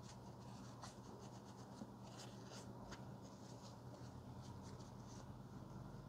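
Faint, irregular rubbing strokes of a cloth or wipe scrubbing a CPU clean with isopropyl alcohol, over a low steady hum.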